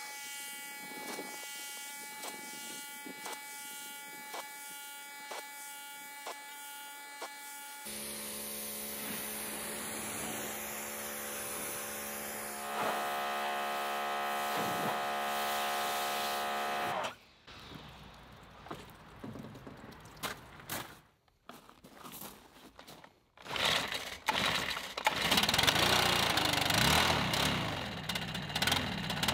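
Electric pressure washer running in several stretches, its motor humming steadily with the hiss of the spray, the pitch of the hum changing between stretches. Near the end a louder, even rushing noise takes over.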